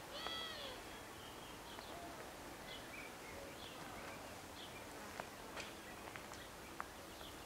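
Faint outdoor ambience with small birds chirping, short high notes about once a second. A louder bird call comes just after the start. A few sharp clicks fall between five and seven seconds in.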